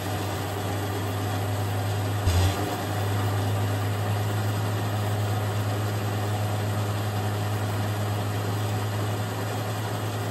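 Dodge M37 wrecker running steadily as its winch winds new steel cable onto the drum under tension, with a brief clunk about two seconds in.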